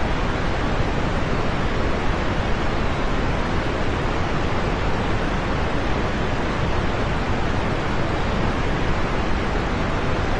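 Steady rain, a dense, even hiss with no single drops, thunder or other sounds standing out.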